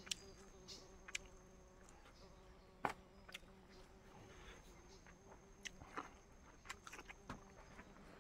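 Faint steady insect drone with a thin high whine, broken by scattered sharp clicks and taps, the loudest about three seconds in.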